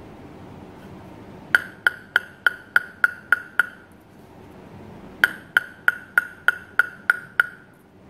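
Plastic table tennis ball tapped on the face of a bare Butterfly Arylate-Carbon blade, in two runs of eight even taps at about three a second. Each tap is a sharp click with a short, high ringing tone from the blade.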